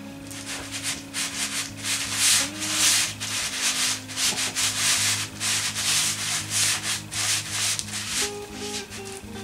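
A knife sawing horizontally through a baked sponge cake to split it into layers: quick rasping back-and-forth strokes through the crumb and crust, about three a second.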